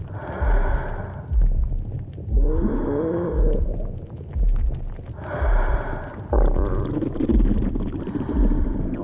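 Stomach growling: long gurgling rumbles, some with squeaky wavering rises and falls in pitch, over a steady low thud about every 0.8 seconds.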